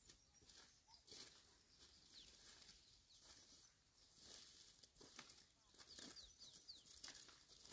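Near silence, with a few faint, short, high chirps of birds.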